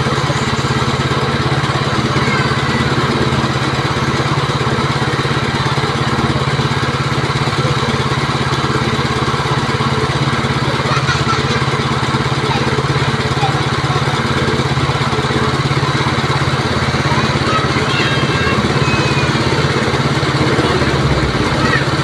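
Small petrol engine of a snow wash foam machine, fitted with a Honda GX160 carburettor, running steadily at a constant speed.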